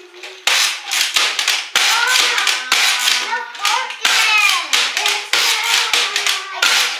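Hand-cranked X-Shot gatling-style toy dart blaster being cranked, with rapid plastic clicking and ratcheting in quick runs.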